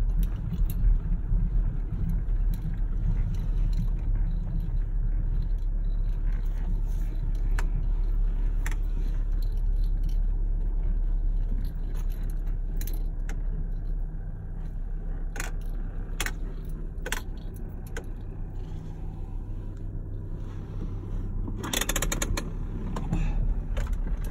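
Steady low road-and-engine rumble heard inside a moving car's cabin, with scattered small clicks and rattles. A brief louder clatter and rustle comes near the end.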